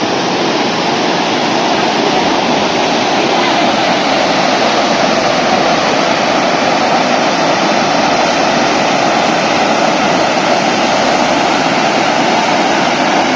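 Steady rush of a waterfall dropping about 70 feet, a loud, even roar of falling water with no change.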